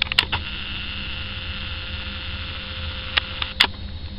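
Truck-mounted road sweeper running with its suction system on: a steady low rumble under a high whine, with a few sharp clicks near the start and again near the end.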